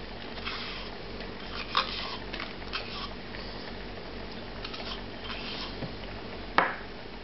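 Hands rubbing a thick salt, garlic and paprika paste onto raw chicken drumsticks in a plastic tub: soft wet squishing and small scattered taps over a steady low hum, with one sharper knock about six and a half seconds in.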